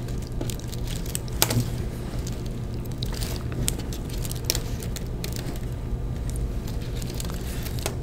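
Plastic spiral wrap and wires being handled and wound around a wire bundle: scattered light clicks and rustles, one sharper click about one and a half seconds in, over a steady low hum.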